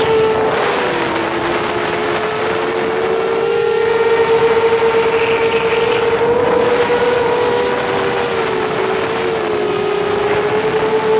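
Motors and propellers of a 7-inch FPV quadcopter whining in flight, several close tones wavering together and dipping in pitch as the throttle changes.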